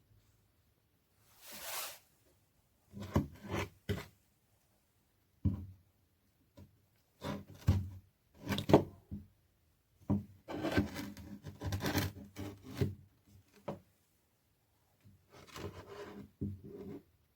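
Bursts of rubbing and scraping with a few knocks, starting and stopping in short spells, as an old hand drill is handled and worked on.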